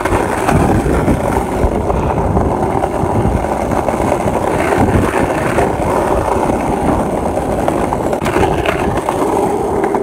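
Skateboard wheels rolling fast over rough street asphalt: a steady, gritty rumble.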